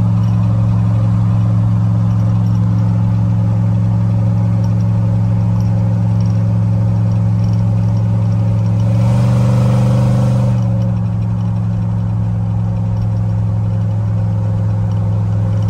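A 1966 Chevrolet C10 pickup's engine and road noise heard from inside the cab while cruising at highway speed, a steady drone. About nine seconds in the engine note rises briefly and gets a little louder, then settles back.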